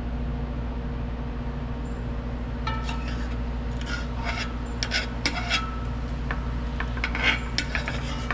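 A spoon scraping against a pot while dishing out food, in about four short scraping spells, over a steady low hum.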